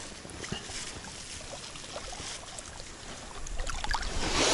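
River water lapping at the shore, a low steady wash that swells near the end, with a few faint clicks.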